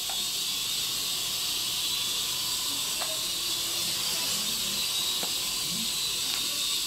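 Syma S100 ultra-micro coaxial RC helicopter hovering, its tiny electric motors and rotors giving a steady high-pitched whir.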